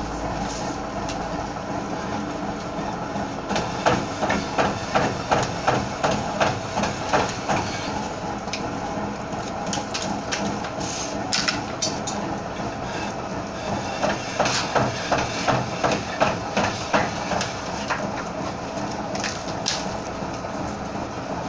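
Cutting machine running with a steady mechanical noise, broken by two runs of rapid, regular knocks, about two to three a second, each lasting a few seconds.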